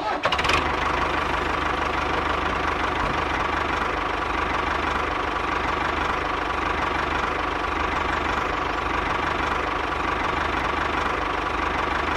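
Small motor of a homemade mini tractor or bulldozer running steadily, with a fast, even rattle.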